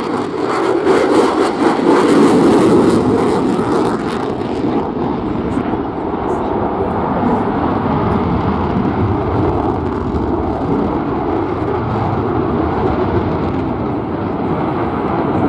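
Lockheed Martin F-35B's single F135 jet engine in afterburner during a display pass. It gives a loud, crackling roar for the first few seconds, then settles into a steadier, deep rumble.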